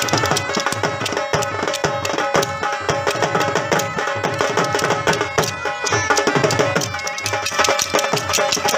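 Folk dance music: dhol drumming at a fast, driving beat with a steady held melody over it.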